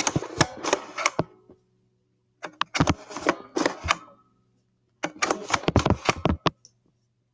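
Talking View-Master's lever mechanism being worked, three bursts of rapid mechanical clicking and rattling about two and a half seconds apart, each advancing the picture reel. A faint steady low hum runs underneath.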